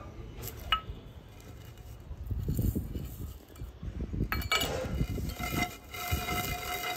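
Spices tipped from a steel cup into a stone mortar, with a single metallic clink about a second in, then a wooden pestle pounding mustard, fenugreek and cardamom seeds in the stone mortar with dull thuds. From about halfway through, a steady high whistle-like tone sounds over the pounding.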